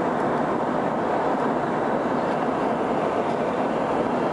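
Steady engine and airflow noise inside a Boeing 707's passenger cabin in flight, from its four Pratt & Whitney JT3D turbofans. It is an even rush with no tones or changes.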